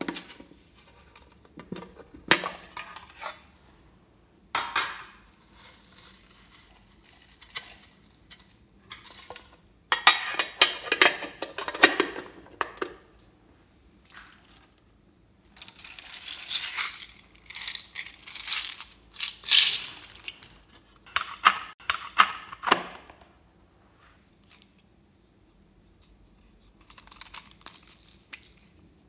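Slime add-ins being handled: small containers opened and sequins and beads poured and shaken out onto slime in a tray, in a series of rattling, clicking bursts with quiet gaps between.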